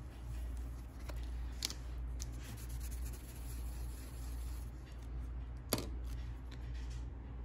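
Light rubbing and a few sharp clicks and taps as a metal nail-stamping plate is wiped clean of polish with an acetone-soaked cotton pad, the loudest click about six seconds in, over a steady low hum.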